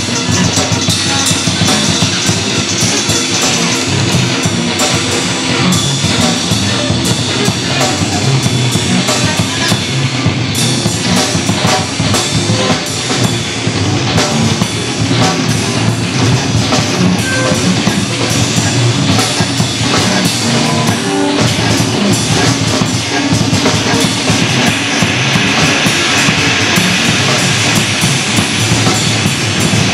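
A band playing live and loud: a drum kit with cymbals, played in a dense, continuous beat, alongside an electric guitar through an amplifier.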